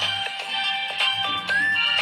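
Nokia 6131 ringtone playing: a synthesized melody of quick, sharply struck notes with several parts sounding together, and a short upward pitch slide about one and a half seconds in.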